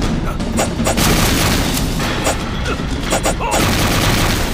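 Explosion booms with a continuous rumble and several sharp blasts, about half a second in, near the one-second mark and a cluster around three seconds in, over dramatic music.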